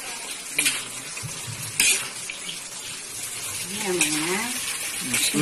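Chopped cabbage and vegetables sizzling steadily in a large aluminium wok while a metal spatula stirs them, with two sharp clanks of the spatula against the pan about half a second and two seconds in.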